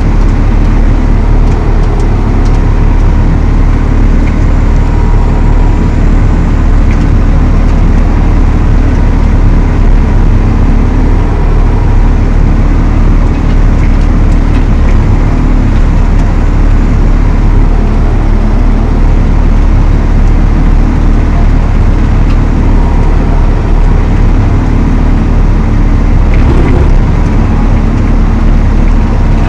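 Valtra T214 tractor engine running steadily under load, with the chain-flail Elho Tornado mower working behind it.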